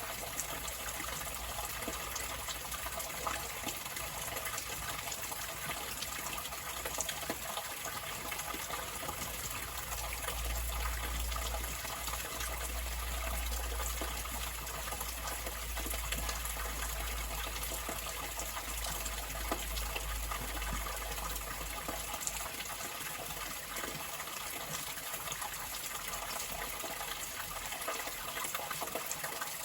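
Water flowing steadily, an even rushing hiss. A deep low rumble joins through the middle stretch, for about twelve seconds.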